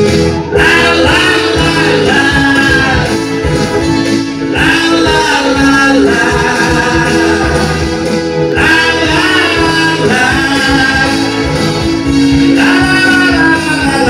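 Man singing a Korean pop song into a handheld microphone over a recorded backing track, in sung phrases that start about every four seconds.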